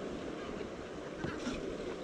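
Sea water washing and wind buffeting the microphone, a steady rushing noise with no distinct strikes.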